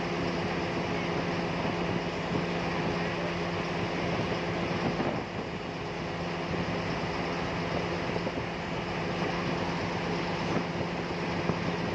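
Steady rushing of wind and flowing river water with a low steady hum beneath it; it eases briefly about five seconds in.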